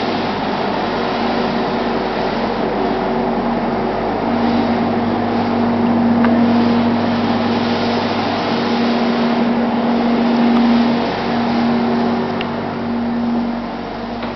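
Steady mechanical drone with a hiss and a constant low hum, the hum growing stronger about four seconds in and dropping out briefly near eleven seconds.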